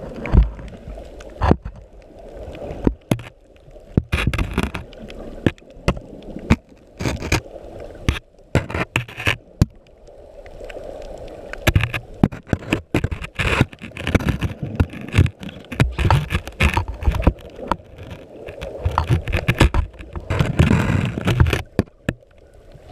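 Muffled underwater sound through a GoPro's waterproof housing, with irregular knocks, clicks and scrapes of the housing against coral over a low rumble. The knocking is busiest in the second half.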